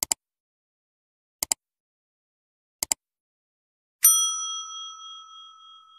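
Subscribe-button animation sound effects: three quick double mouse-clicks, about a second and a half apart, then a single notification-bell ding that rings on and slowly fades.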